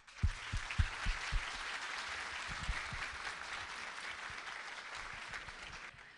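Audience applauding: many hands clapping in a steady patter, with a few louder close claps in the first second and a half. The clapping fades slightly and breaks off near the end.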